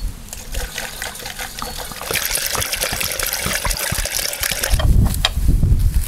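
Water poured from a large plastic jug through a plastic funnel into a homemade steam motorcycle's water tank, a steady pour that stops about five seconds in. A low rumble follows near the end.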